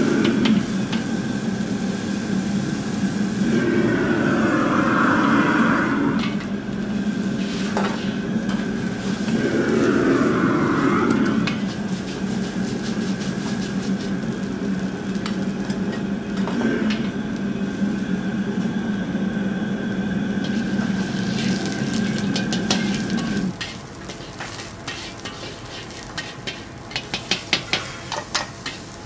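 Commercial gas wok stove running with a steady hum while water boils in the wok and a bamboo wok brush swishes through it in two swells. About 23 seconds in the hum drops away, and a metal ladle clinks and scrapes against the wok as garlic sizzles in hot oil.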